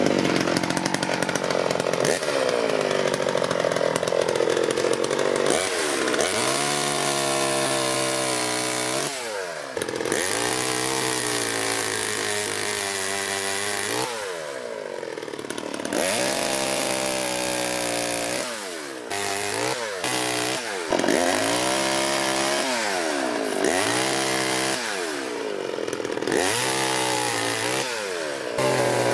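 Vintage Sachs-Dolmar 105 two-stroke chainsaw running and cutting tree branches. The engine revs up and sags back down again and again as the chain bites into the wood. The saw runs again after its carburettor and chain-oil pump were cleaned out.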